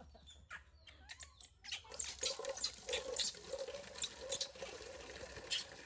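Tap water pouring and splashing into a stainless steel basin, starting about two seconds in after a few scattered clicks.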